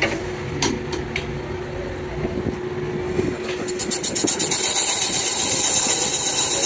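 Cylinder boring machine on an engine cylinder: a few sharp metallic clicks as its spindle handle is worked, a steady hum, then about four seconds in a quick run of ticks and a steady high hiss as the boring bar runs in the bore.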